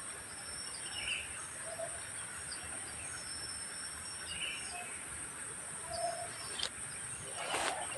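Outdoor ambience of insects and birds: a steady high-pitched insect drone with a fainter on-and-off high tone, and short bird chirps and brief low calls every second or two. A couple of sharp rustles or clicks come near the end.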